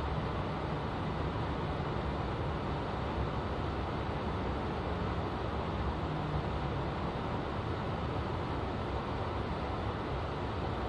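Swiss S-Bahn commuter train running, heard from inside the carriage: a steady rumble of wheels on rail and running gear, with a faint low hum.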